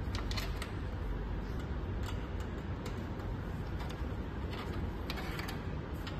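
Scattered light clicks and taps of charging cables and plastic connectors being handled and pressed into place inside a metal charging cabinet, irregular and clustered near the start and around five seconds in, over a steady low rumble.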